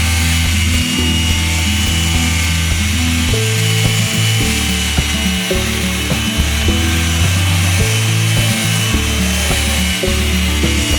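Background music with a bass line stepping between held low notes, over a steady high-pitched whine like that of a power tool.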